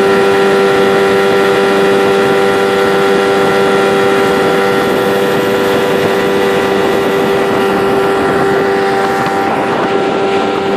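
2010 18 hp Tohatsu two-stroke outboard motor running steadily at speed, one unchanging engine pitch over the rush of water from the wake.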